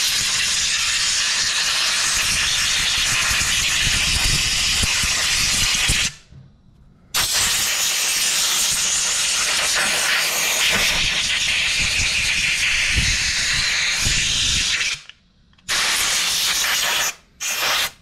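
Compressed-air blow gun hissing in long blasts as it blows the cleaning water out of carburetor parts after an ultrasonic bath: a blast of about six seconds, a one-second pause, one of about eight seconds, then two short bursts near the end.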